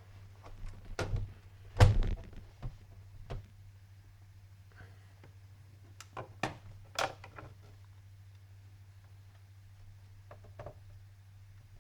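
Knocks and clicks from handling a laptop's plastic case and screwdriver during disassembly, with a thump about two seconds in and a few more sharp clicks around six to seven seconds, over a steady low hum.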